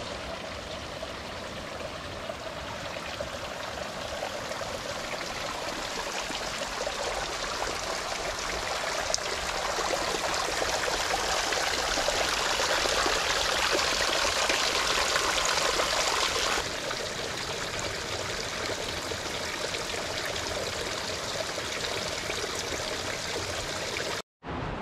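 Mountain stream running, a steady rush of water that builds louder toward the middle and drops suddenly to a quieter level about two-thirds of the way in.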